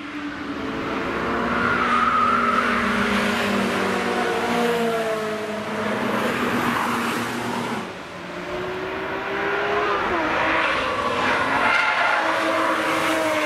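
Cars going by at speed, engine notes rising and falling as they accelerate and pass; the sound dips about eight seconds in before another car comes through.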